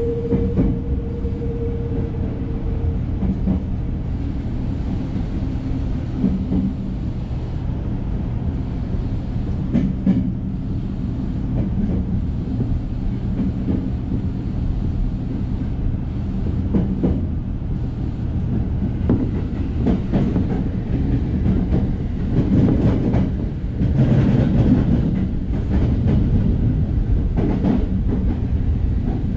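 Electric commuter train running, heard from inside the driver's cab: a steady low rumble and hum of the running gear with occasional clicks from the wheels. A steady tone fades out about three seconds in, and the running noise grows louder for a few seconds about two-thirds of the way through.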